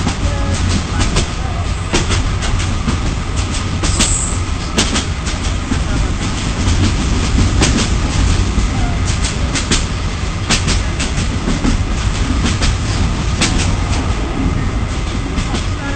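Passenger train running, heard from inside a carriage: a steady low rumble with irregular sharp clicks from the wheels on the rails.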